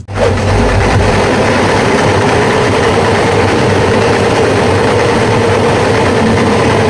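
Hartridge 800 diesel injection pump test bench running steadily, driving an injection pump during calibration.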